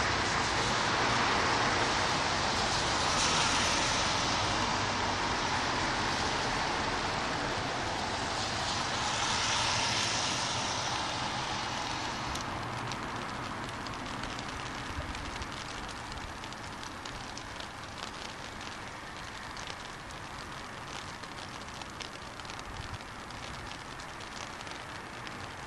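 Car tyres hissing on a wet road as traffic passes in the rain, swelling twice in the first ten seconds. After about twelve seconds it settles into a fainter, steady rain hiss with light patter.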